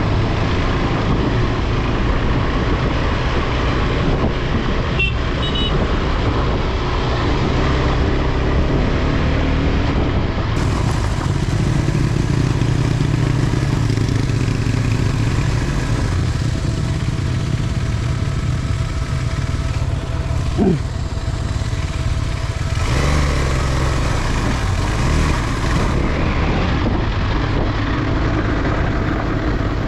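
Motorcycle engine running under load on a rough off-road climb, its note shifting with the throttle. A short falling tone sounds about two-thirds of the way through.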